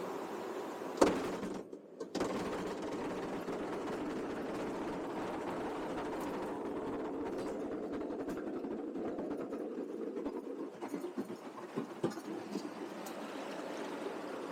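Light amphibious aircraft's engine and propeller running steadily, heard from inside the cabin. There is one sharp click about a second in and a brief dropout just before two seconds. The sound becomes more uneven near the end.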